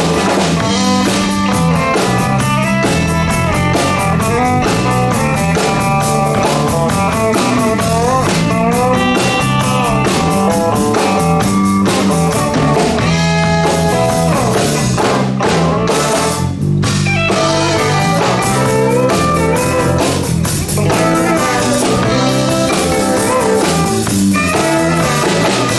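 Live blues band playing an instrumental break: a guitar lead with bending notes over a steady bass line and drums.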